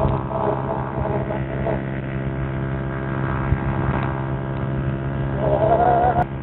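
Honda Pridor's 100cc single-cylinder four-stroke engine running steadily at high revs while the bike travels at speed, with wind rushing over the handlebar-mounted microphone.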